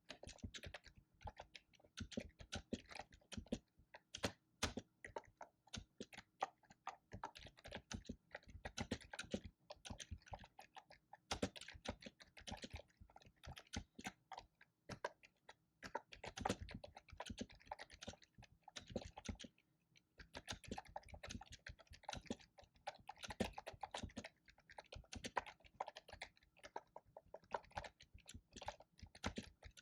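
Computer keyboard being typed on continuously, dense irregular key clicks in quick runs with brief pauses between them.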